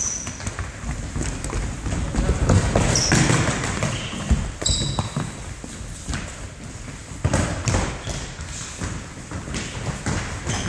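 Indoor football on a wooden gym floor: the ball thudding off feet and the floor, players' running footsteps and a few short shoe squeaks, echoing in the hall.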